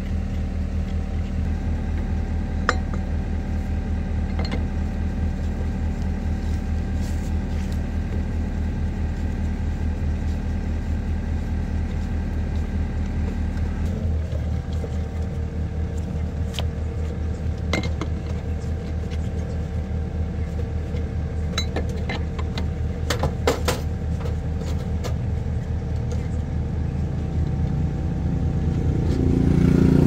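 An engine running steadily in the background, with scattered sharp metallic clinks of hand tools on a steel wheel hub. The drone changes about halfway through and grows louder near the end.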